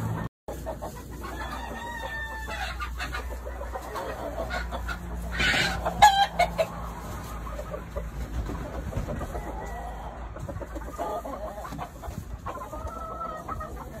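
Gamefowl chickens calling: hens clucking, with a rooster crowing; the loudest call comes about six seconds in.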